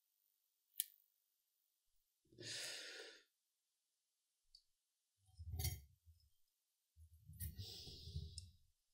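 A single sharp click about a second in, then a man breathing out audibly three times, the longest near the end: sighs close to the microphone.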